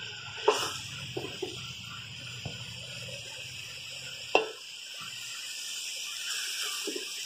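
Wooden spoon serving spinach and potato sabzi from a steel pot onto a ceramic plate: a few scattered knocks and clinks, the sharpest about half a second in and about four seconds in, over a steady high hiss.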